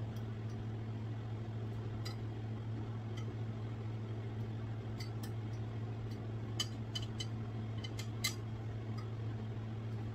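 Light clinks of a utensil against a glass dish and pan as cooked meatballs are lifted out and transferred, a handful of them in the second half. Under them runs a steady low kitchen-appliance hum.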